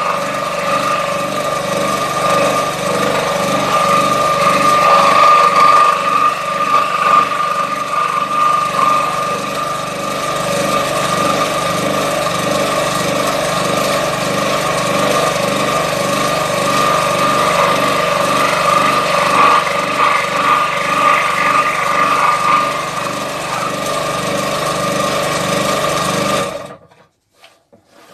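Electric fret saw (scroll saw) with a pin-end blade running and cutting through MDF: a steady mechanical buzz with the blade's rapid even strokes underneath. It stops suddenly near the end.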